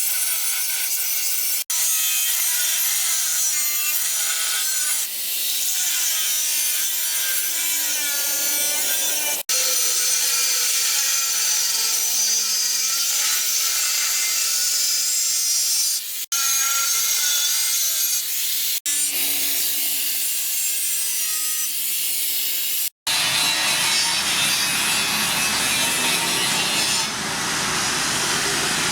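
Power grinder working the steel of a circular saw blade: a steady, harsh hiss with a wavering whine, cut off abruptly several times. After a break near the end the sound takes on a deeper rumble.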